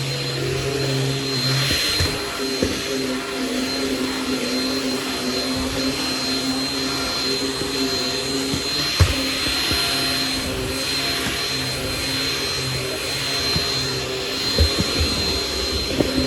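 Shark Rocket stick vacuum running steadily on carpeted steps, a motor hum with a high steady whine. A few short knocks are heard, the sharpest about halfway through.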